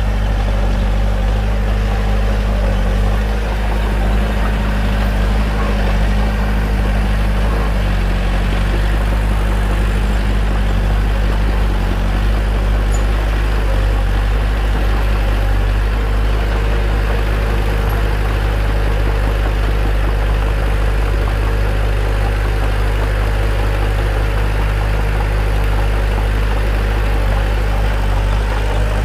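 Bulldozer's diesel engine running at a steady speed, a deep, even drone.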